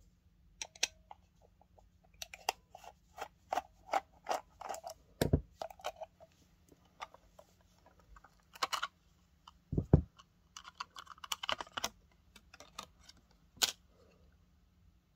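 Rapid clicks, taps and scrapes as the metal bottom plate of a Boss OD-1 overdrive pedal is worked loose and lifted off its enclosure, with two dull thumps of handling, one about five seconds in and one about ten seconds in.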